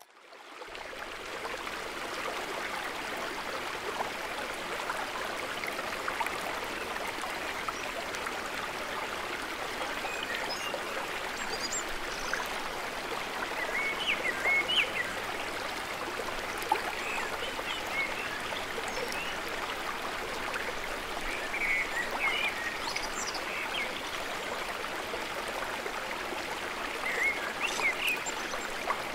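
Steady rush of a flowing stream, fading in over the first second, with scattered short bird chirps over it.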